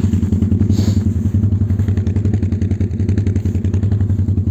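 Quad bike (ATV) engine running steadily under way, with a fast, even pulse of firing strokes.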